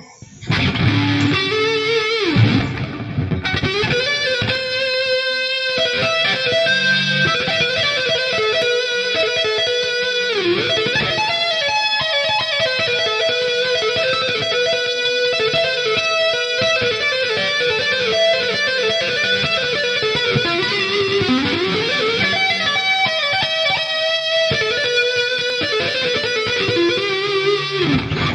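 Ibanez Radius 540R electric guitar played through the Scuffham S-Gear 2.9 amp simulator in fast two-hand tapping runs. The notes come in a rapid, unbroken stream with a few sweeping slides in pitch, starting about half a second in.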